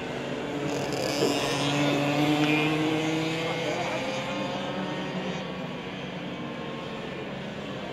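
Two-stroke racing kart engines passing at speed. They swell about a second in and fade toward the end.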